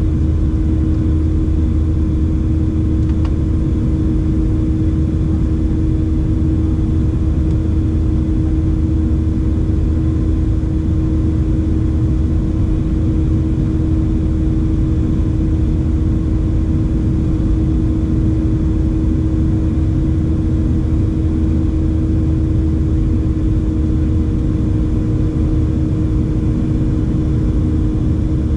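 Boeing 737-700's CFM56-7B turbofan engines and airflow heard inside the passenger cabin during the climb after takeoff: a loud, steady drone with a constant hum.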